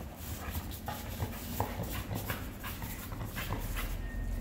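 A dog pulling on a fabric bite tug held by a person, making low sounds as it tugs, with scattered short scuffs and clicks.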